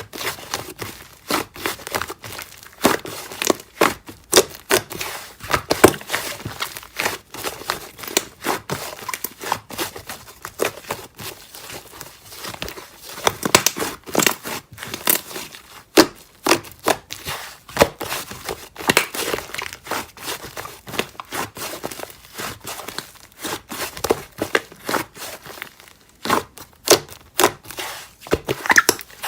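Slime being squeezed, poked and stretched by hand, a rapid, irregular run of crackling pops and clicks.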